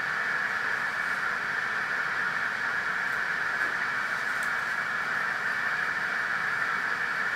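A steady, even hiss, with a few faint light ticks about three and four and a half seconds in.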